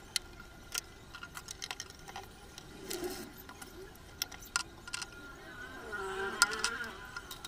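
Light clicks, taps and clinks from handling a glass cooking-oil bottle, its funnel and pump top, with a cloth rubbing the bottle near the end, over a faint steady high hum. A faint wavering pitched sound rises briefly in the background about six seconds in.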